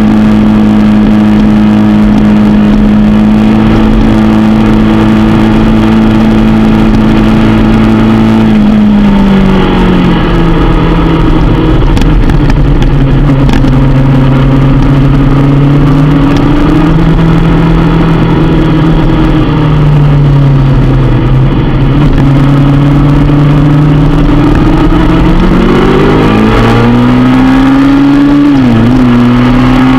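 Motorcycle engine heard from a camera mounted on the bike during a track lap. It holds a steady high note, falls sharply about nine seconds in as the bike slows for a corner, runs lower through the bend, then climbs again near the end with a brief dip at a gear change.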